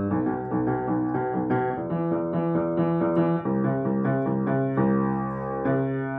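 Upright piano played in a quick, flowing run of notes, settling onto a held chord near the end.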